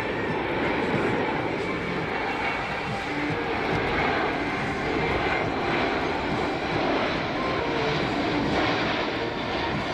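Jet noise from a Boeing C-17 Globemaster III's four turbofan engines as the transport flies its demonstration, holding steady without a break.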